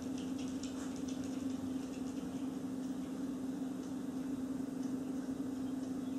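A steady low machine hum with faint high ticks in the first second or so.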